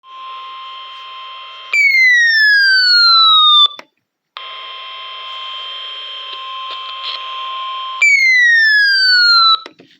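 Emergency alert tones for a severe thunderstorm warning: a steady high tone broken twice by loud tones that slide steadily downward in pitch, with a short silence about four seconds in.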